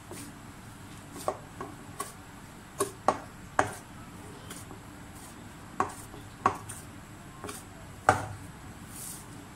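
Stiff potato-and-wheat-flour dough being kneaded by hand in a glass bowl: irregular knocks as the dough is pushed and pressed against the bowl, about ten of them, the loudest near the end.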